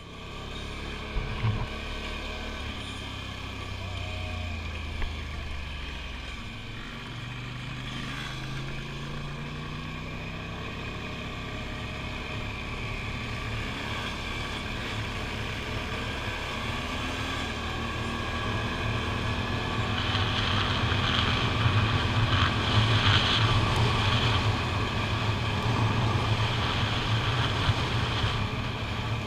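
ATV engine running as the quad gets under way, its pitch rising as it speeds up about seven seconds in, then holding steady and getting louder some twenty seconds in. A couple of short knocks sound about a second and a half in.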